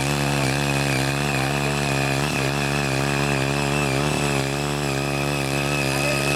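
Small 5 hp engine of a CY80 mini cultivator running steadily under load while its six rotary tines churn hard red laterite soil. The pitch dips slightly a few times, around two seconds in and again around four seconds in, as the tines bite.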